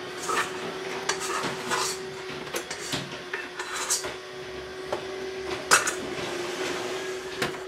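Plastic bowl scraper scraping dough out of a stainless steel stand-mixer bowl, with irregular scrapes and light knocks against the metal. Two sharper clanks of the steel bowl come near the end.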